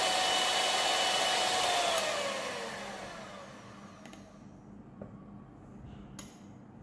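White handheld electric mixer running, its beaters whipping a coffee and sugar mixture in a small glass, with a steady motor whine. About two seconds in it is switched off and the whine falls in pitch as the motor spins down, fading out by about four seconds; a couple of faint clicks follow.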